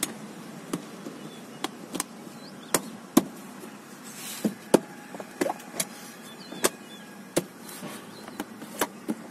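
Plastic car door sill trim strip being pressed onto the sill by hand, its retaining clips snapping into place in a series of sharp clicks at irregular intervals.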